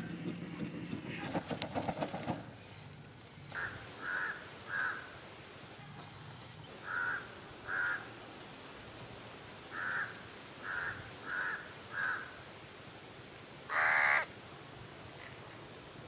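A crow cawing: short harsh caws in groups of two to four, then one longer, louder caw near the end. A few seconds of rustling come before the caws.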